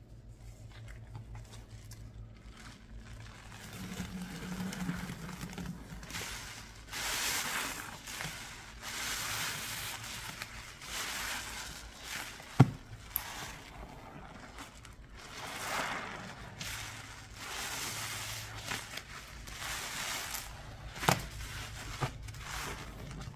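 Cleaning paste being worked by hand: repeated swishing, scraping strokes that swell and fade. There is a sharp knock about halfway through and another near the end, over a low steady hum.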